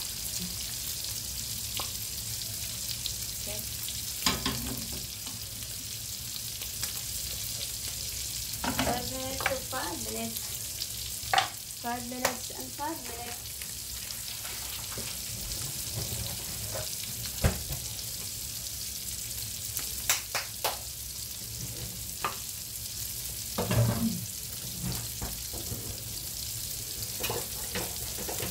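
Beef steaks frying in butter in a frying pan: a steady sizzling hiss with occasional pops and clicks.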